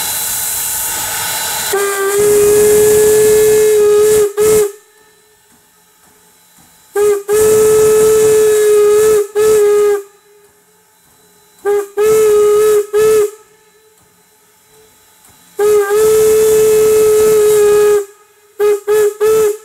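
Norfolk and Western #475's steam whistle blowing a series of long and short blasts at one steady pitch, opening with a loud hiss of steam.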